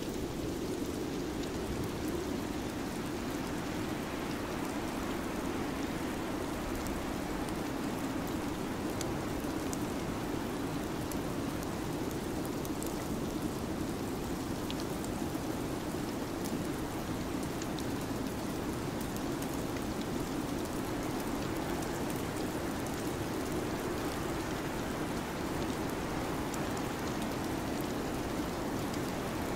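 Steady, even hiss of an ambient winter-storm soundscape, rain-like in character, with a low band of rumble beneath it and a few faint, scattered ticks.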